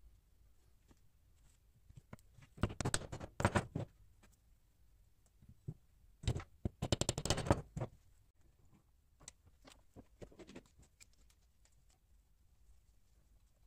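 Two bursts of rapid clattering and scraping, each a little over a second long, about three and six seconds in, as the glue-coated wooden handle scales are handled and pressed together onto the steel cleaver's tang; a few lighter clicks follow.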